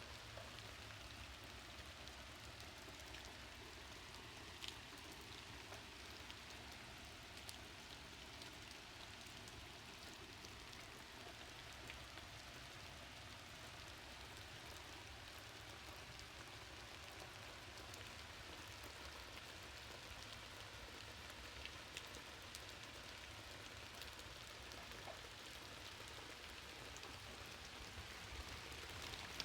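Faint, steady rain falling, with a distinct drop tapping now and then.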